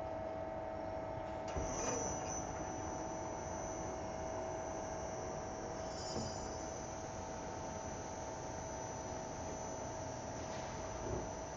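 CNC lathe humming steadily: several steady tones with a thin high whine over them, and a light knock about a second and a half in and another near the end.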